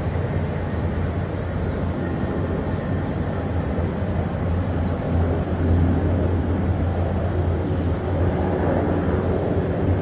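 Steady low rumbling noise, a little louder from about halfway through, with faint high chirping for a couple of seconds early in the middle.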